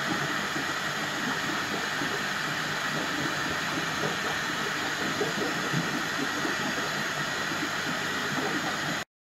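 Steady hiss with faint irregular crackling beneath it, cutting off suddenly near the end.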